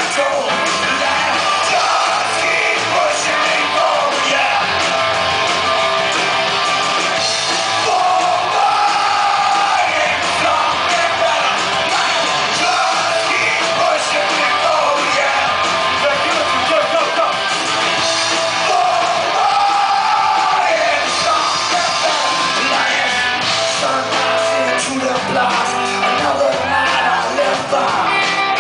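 A reggae-punk rock band playing live, with electric guitars, drums and sung vocals, heard loud from the audience in a club hall.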